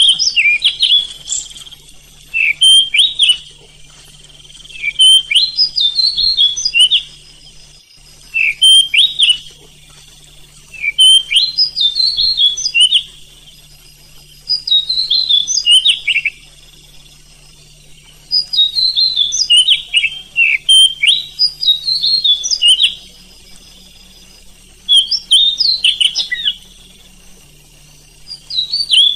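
Oriental magpie-robin (kacer) song: short bouts of rapid, varied whistled notes, repeated every two to three seconds. It is played as a training song meant to provoke other magpie-robins into singing.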